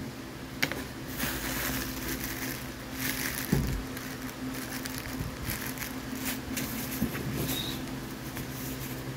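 Plastic packaging bags crinkling and rustling as they are handled inside a cardboard box, with a few sharp knocks and one low thud about three and a half seconds in. A steady low hum runs underneath.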